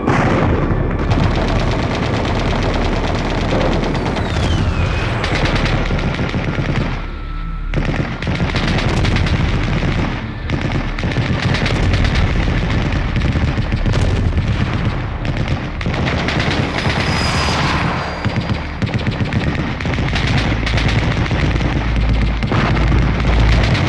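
Dense, continuous automatic gunfire with booms, a battle soundtrack.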